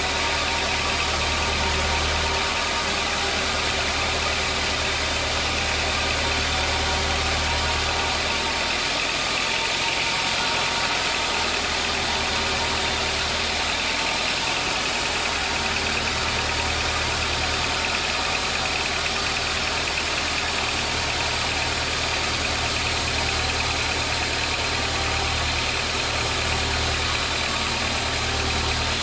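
Sawmill machinery running steadily: a constant hiss with a low engine-like hum underneath that fades for a few seconds near the middle and then comes back.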